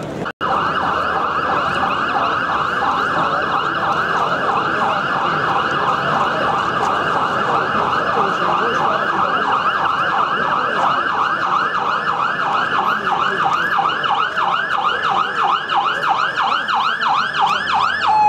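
Emergency vehicle siren in a fast yelp, its pitch sweeping up and down about four times a second.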